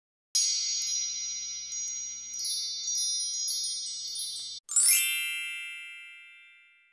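Outro sound-effect jingle of bright, tinkling chimes: a run of ringing notes that cuts off about four and a half seconds in. Then a quick rising sweep leads into one last loud chime that rings and fades away.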